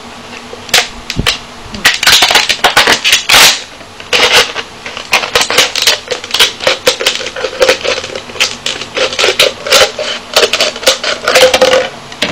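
Thin plastic water bottle being cut in half with scissors: rapid, irregular crackling and snipping of the plastic as the blades work around it and the bottle flexes, starting about a second in and stopping just before the end.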